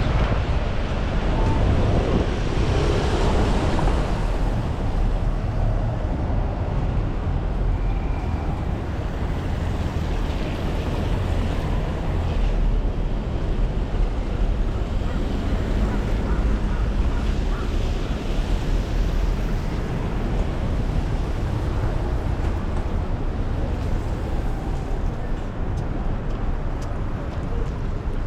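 Strong gusty wind buffeting the microphone in the rain, a heavy rumble that swells and eases, over a steady hiss of rain and street traffic.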